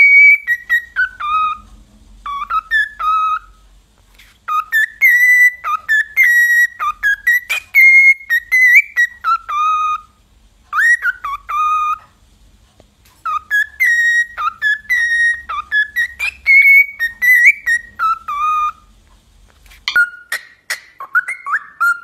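Cockatiel whistling a melodic tune in repeated phrases of clear notes that glide up and down, with short pauses between phrases. Near the end come a few sharp clicks and a short whistle.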